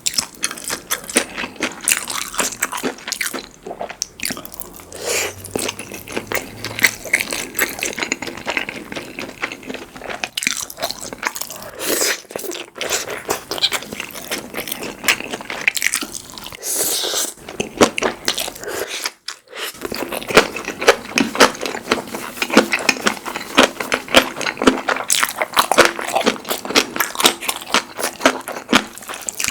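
Close-miked eating sounds: a person biting and chewing food, with many quick wet clicks and crunches.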